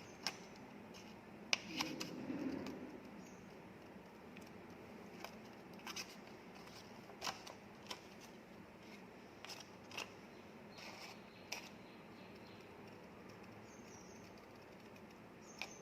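Scissors snipping through a strip of paper: faint, scattered snips and clicks with pauses between them.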